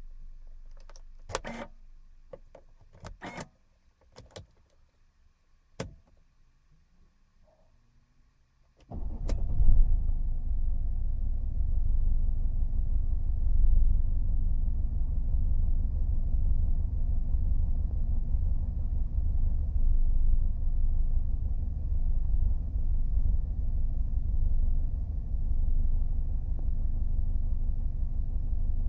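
A few sharp clicks, then about nine seconds in a 2002 Mercedes-Benz W210 E220 CDI's four-cylinder common-rail diesel starts and settles into a steady low idle. This is the engine whose idle the owner reports as intermittently rough.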